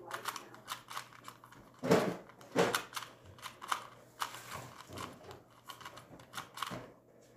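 Plastic 2x2 speed cube being turned rapidly during a timed solve: a fast, irregular run of light clicks and clacks as the layers snap round, with a couple of louder clacks about two seconds in.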